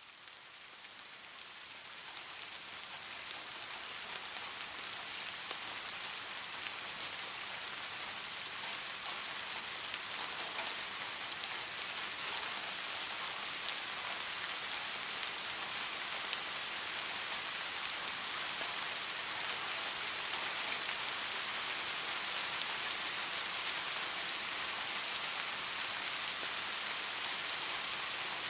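Steady rain falling, an even hiss with faint fine drop ticks, fading in over the first few seconds and then holding level.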